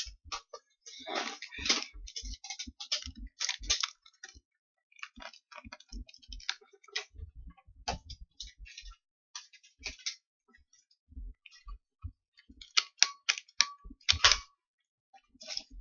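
Plastic and cardboard toy packaging being handled as a toy is worked free of its box and insert: irregular clicks, crackles and rustles, with a louder cluster of clicks near the end.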